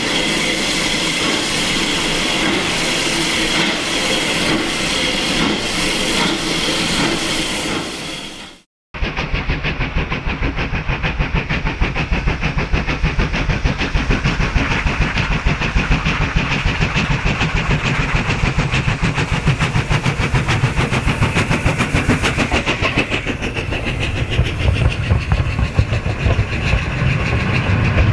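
Steam train running, with rail clatter. After a brief cut about a third of the way in, a fast, even beat over a low rumble.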